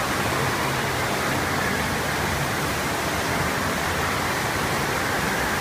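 Steady rushing of water on an artificial standing-wave surf ride, a thin sheet of water pumped fast up a sloped ramp.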